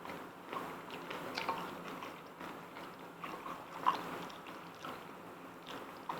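Close-up eating sounds: soft, scattered wet smacks and small clicks of someone chewing food, one sharper click about four seconds in.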